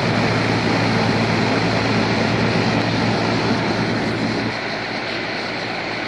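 Trane 2-ton air conditioning condenser unit running: the top discharge fan blows a steady rush of air over a low steady hum, moving good airflow through the condenser coil. The sound drops slightly about four and a half seconds in.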